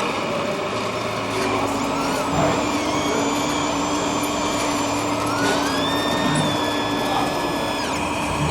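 Radio-controlled construction models running: electric motors and hydraulic pumps whining over a steady hum. Several whining tones shift in pitch, climbing about two-thirds of the way through and cutting off just before the end.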